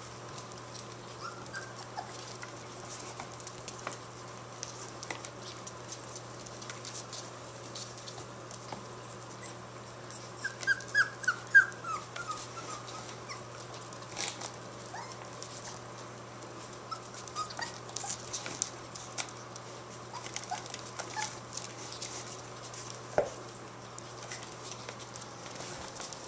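A litter of Aussiedoodle puppies whimpering and yipping, with a quick run of five or six short, high yelps about ten seconds in and another sharp one near the end. Scattered clicks and scuffles come from the puppies moving about on the hardwood floor, over a steady low hum.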